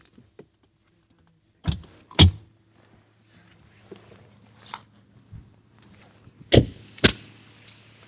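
Sharp clunks in a car, two pairs about half a second apart, over the low steady hum of the vehicle idling.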